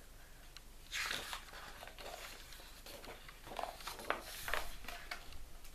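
Pages of a large picture book being turned and handled: irregular paper rustling and sliding, loudest about a second in and again around four seconds.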